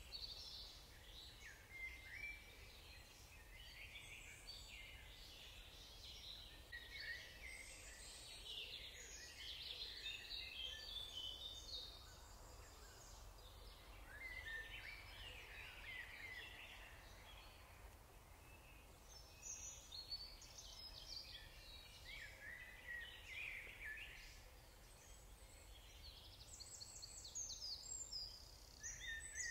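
Faint birdsong: several small birds singing and chirping in short, busy phrases that come and go, over a low steady rumble.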